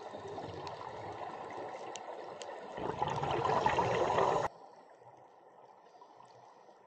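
Underwater sound picked up by an action camera on a scuba dive: bubbles gurgling from a diver's regulator, swelling into a louder rush of exhaled bubbles about three seconds in, with a few faint clicks. About four and a half seconds in it drops to a faint underwater hiss.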